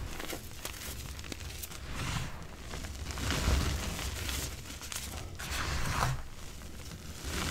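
Hands crushing and crumbling lumps of reformed gym chalk into loose chalk powder: gritty crunches and powdery rustling that swell and ease several times.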